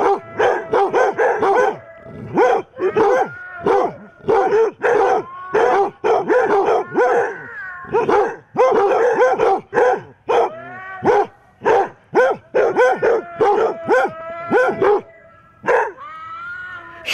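A pack of basset hounds barking and baying over one another: rapid short barks at first, then longer drawn-out bays mixed in during the second half.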